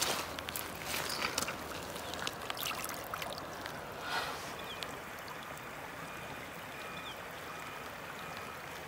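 Footsteps crunching on wet gravel and pebbles for the first few seconds, then a steady rush of flowing water.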